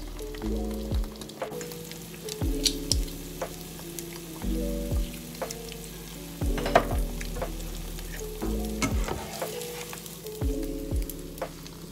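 Eggs frying in a nonstick pan, sizzling and crackling with scattered sharp pops. Background music plays under it, its chords and bass changing about every two seconds.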